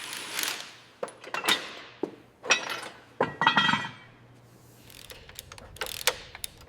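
Metal tools and parts clinking and clanking in a workshop: a string of sharp metallic knocks, some with a short ring. It goes quieter about two-thirds of the way through, then a few more clicks come near the end.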